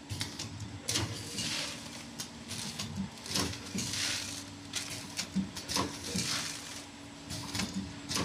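Vertical form-fill-seal packaging machine running its bagging cycle: sharp mechanical clicks and hissing rushes come every second or two over a steady hum.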